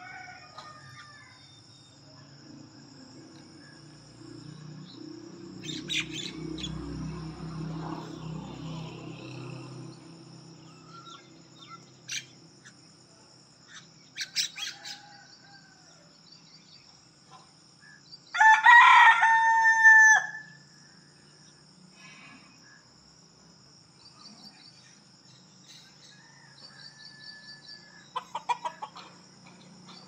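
Rooster crowing once, a single loud drawn-out crow of about two seconds a little past halfway. A steady high insect trill runs underneath, with scattered chirps of small birds.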